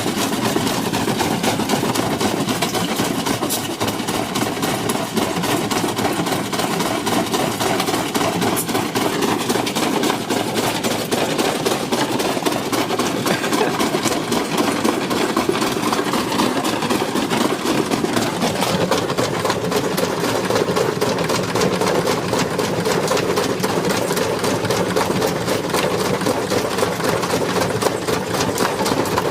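Washing machine being run to destruction, running hard with a dense, rapid rattling knock. Its tone shifts higher about two-thirds of the way through.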